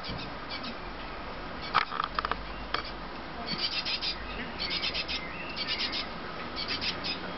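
Great tit fledgling begging: short runs of rapid, high-pitched calls, four in a row about a second apart in the second half. A few sharp ticks come about two seconds in.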